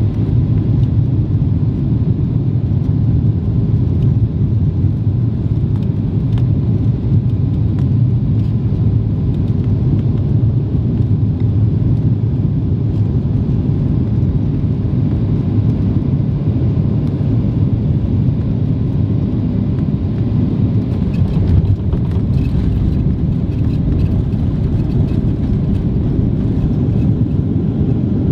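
Steady low rumble of cabin noise inside a Boeing 737-800 on approach: its CFM56-7B engines and the rush of air over the fuselage, with a few faint clicks or rattles about two-thirds of the way through.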